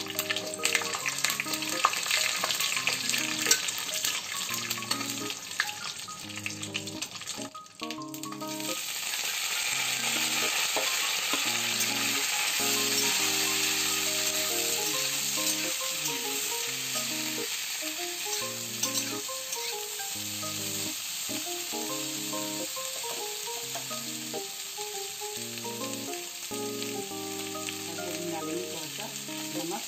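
Chopped cauliflower, brinjal and onion sizzling in hot mustard oil in a kadhai. A spoon stirs and scrapes against the pan, giving quick ticks in the first several seconds. The sizzle drops briefly about eight seconds in, then returns steadier and a little louder. A soft background melody plays underneath.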